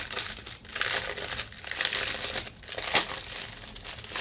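Clear plastic packaging bag crinkling and rustling as it is handled and unwrapped, in uneven crackles, the sharpest about three seconds in.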